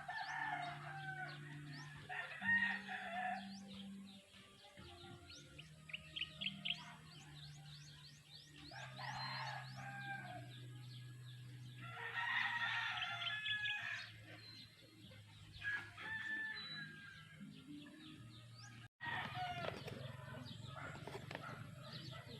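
Roosters crowing, several long crows in turn, with small birds chirping quickly between them.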